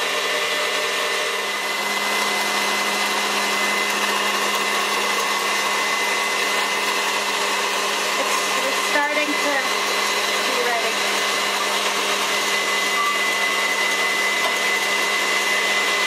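KitchenAid stand mixer running steadily at its one speed, its wire whisk beating egg whites with sugar toward stiff peaks in a stainless steel bowl. An even motor whir with a steady high whine throughout.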